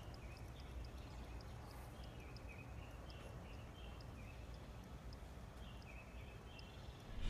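Faint outdoor evening ambience of small creatures calling: a regular row of quick high ticks, three or four a second, and short repeated chirping notes a little lower, over a low rumble of wind.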